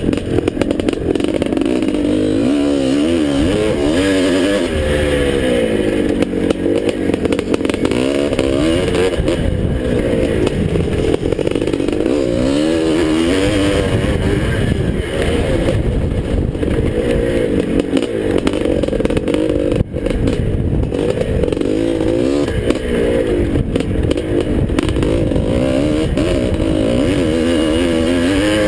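1981 Husqvarna 430 two-stroke single-cylinder motocross engine under race load, its pitch rising and falling again and again as the rider opens and closes the throttle through turns and straights, with wind noise over the helmet-mounted microphone.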